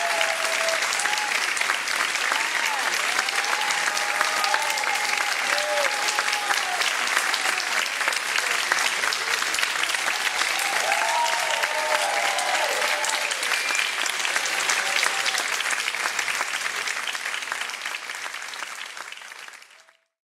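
Theatre audience applauding with scattered cheers, fading out over the last few seconds.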